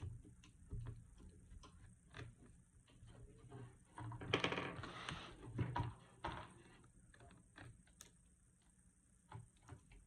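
Small irregular clicks and taps of hands handling the opened laptop and its parts, with a louder rustling and scraping stretch around four to six seconds in.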